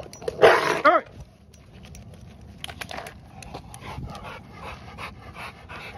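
American Bully dog panting hard during rough tug-and-wrestle play, with irregular snuffling and scuffling. A brief loud cry with a bending pitch comes about half a second in.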